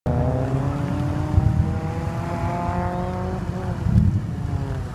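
2004 Subaru Impreza WRX STI's turbocharged flat-four engine running at low speed with a steady note over a deep rumble. The note dips slightly about three seconds in, and a louder low surge follows about a second later.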